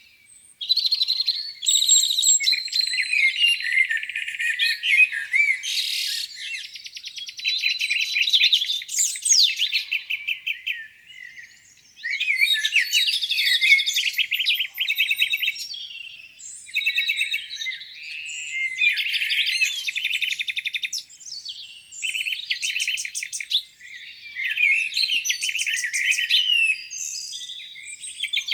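Several songbirds singing at once, overlapping chirps, whistled phrases and fast trills, with a short lull about eleven seconds in.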